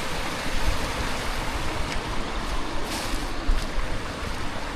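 Steady rushing of a mountain stream, with a low rumble underneath.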